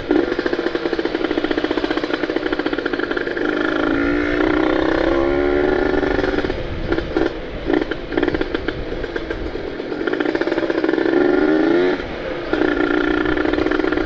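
Kawasaki Ninja 150 RR's ported single-cylinder two-stroke engine running under way while being broken in. Its pitch rises twice as the throttle is opened, about four seconds in and again near eleven seconds. Between the two it drops off and gives a few quick blips.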